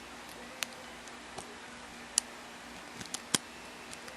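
Small, sharp metallic clicks of a lock pick and tension wrench working inside a challenge lock's keyway during picking: about seven irregular clicks, three of them close together about three seconds in.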